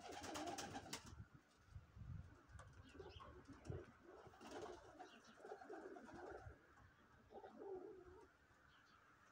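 Domestic pigeons cooing faintly, on and off, with a short rapid clatter in the first second.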